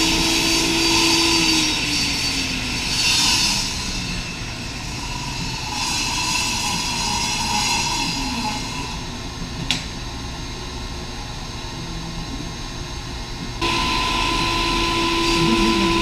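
Table saw running as it rips plywood, with hissy bursts of blade cutting; a couple of seconds in it is switched off and the whine falls away as the blade spins down. Near the end the saw is switched on again and comes straight back up to its steady whine.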